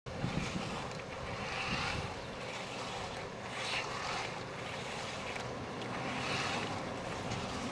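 Pole paddle blades stroking through the water of a paddleboard, a watery swish about every two to two and a half seconds over steady wind noise on the microphone.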